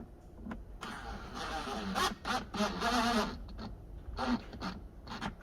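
Cordless drill/driver running for about two and a half seconds as it drives a T25 Torx screw back in, followed by a few short clicks.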